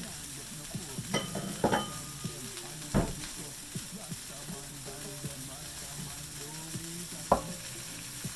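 Tuna steak searing in a hot frying pan, a steady sizzle, with a few sharp knocks and two brief ringing clinks over it; the loudest knocks come about three seconds in and near the end.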